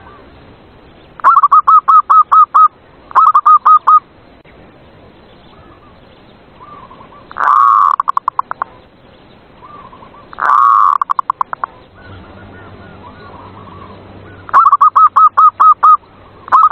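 Zebra dove (perkutut) cooing: about six bursts of rapid staccato coos. Two of the bursts, a little past the middle, open with a longer drawn note that breaks into fast trailing pulses, and fainter coos come between the bursts.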